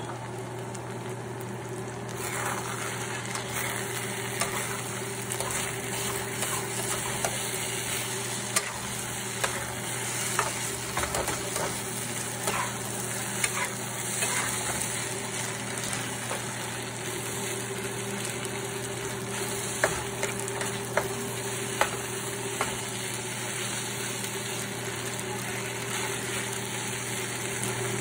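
Food sizzling as it is stir-fried in a nonstick frying pan, a metal spatula stirring and scraping through it with scattered sharp clicks against the pan. The sizzle grows louder about two seconds in.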